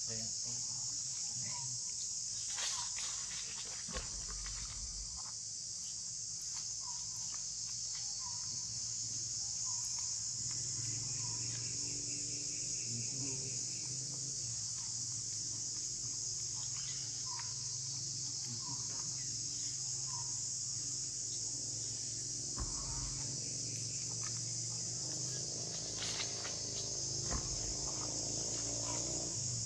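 Steady high-pitched insect chorus that runs without a break, with occasional light rustles and clicks and short faint chirps over it.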